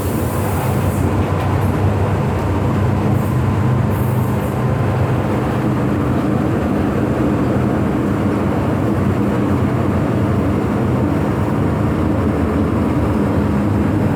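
Hong Kong MTR M-Train electric multiple unit running: a steady rumble of wheels on the rails with a low, even hum.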